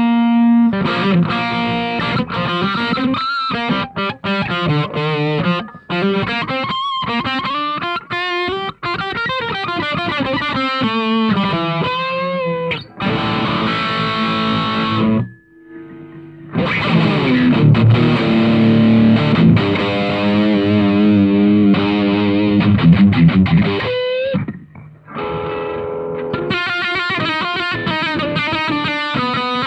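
Electric guitar played through a handmade distortion pedal, with a thick, saturated tone: lead lines with bent and vibrato notes, then long held chords. The playing breaks off briefly twice.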